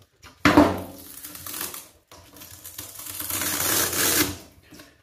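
Saker 12V cordless buffer/polisher motor running in two short bursts, the first starting sharply and fading, the second building up and then cutting off.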